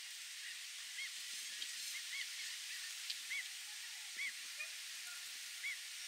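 White ibis giving a scattered series of short honks, several seconds apart at times and closer together at others, over a steady background hiss.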